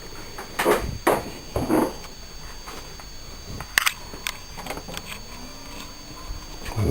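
Knocks and clicks of a USB lead being handled and plugged into another computer, a sharp click near the middle, over a steady high-pitched electrical whine.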